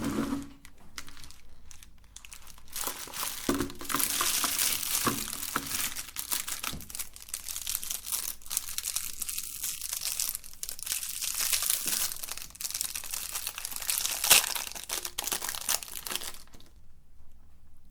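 Hard candy being crushed in a meat grinder: a dense run of crackling and crunching that stops shortly before the end.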